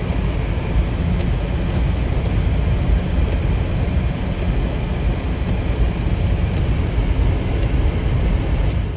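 Steady rumbling road and wind noise of a car on the move, heaviest in the low end, cutting off abruptly at the end.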